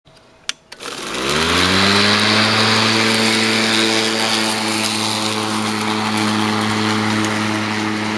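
Earthwise electric lawn mower switched on with a click, its motor spinning up in a rising whine to full speed within about a second, then running steadily with the rush of the spinning blade.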